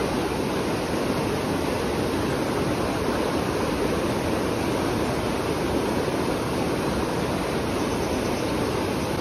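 The Provo River rushing steadily, running high and fast.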